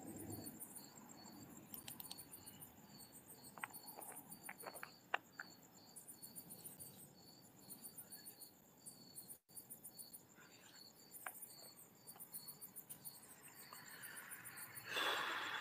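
Crickets chirping, a faint, even rhythm of high chirps about twice a second, with a few faint clicks about four to five seconds in.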